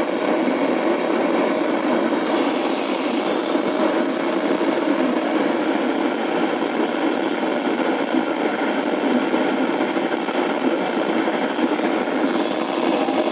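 Steady hiss of radio static from a weather radio receiver, with no broadcast signal coming through.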